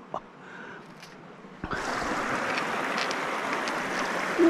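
Steady rushing of flowing river water that starts abruptly a little under two seconds in. Before it there are only a couple of faint clicks.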